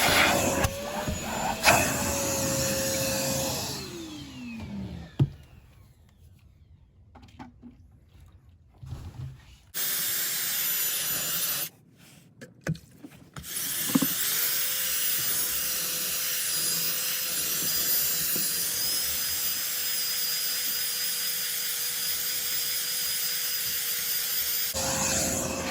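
Wet/dry shop vacuum motor running with a steady whine and rush of air, switched off about four seconds in and winding down in pitch. After a quiet stretch with a few knocks and a short burst of noise, it starts again about halfway through and runs steadily.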